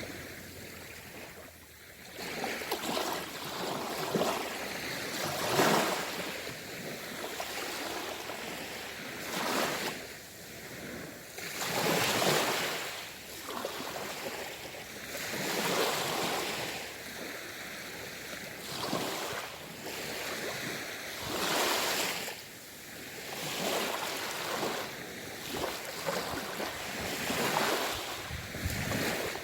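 Ocean surf: waves break and wash onto the shore, the noise swelling and falling back every few seconds.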